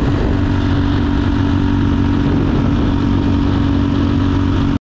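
Motorcycle engine running at a steady speed, cutting off suddenly near the end.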